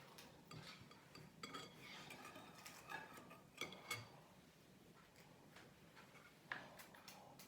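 Near silence: a quiet room with a few faint clicks and light taps, a little more of them in the first half and one more near the end.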